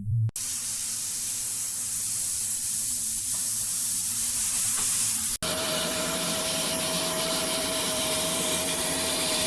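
A steady spraying hiss that cuts off abruptly about five seconds in. A second steady hiss with a faint steady whine takes its place.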